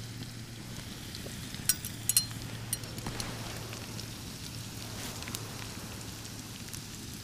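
Potatoes frying in butter and garlic in a pan on a camping gas stove: a steady sizzle, with a few sharp clicks about two seconds in.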